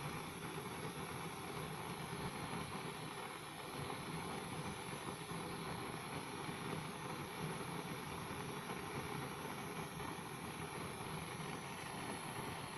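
Gas cartridge blowtorch burning with a steady hiss of gas and flame, heating a screw held in pliers in its flame.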